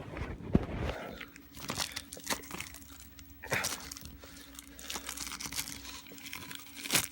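Plastic shrink wrap from a VHS tape crinkling and crackling in irregular bursts as it is handled and pulled off.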